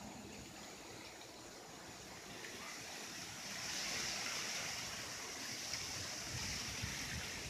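Wind ahead of a storm, a steady hiss through trees and foliage that grows louder about halfway through.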